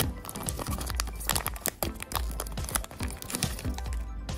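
Foil trading-card booster pack crinkling as hands pull it open, in many quick crackles, over background music.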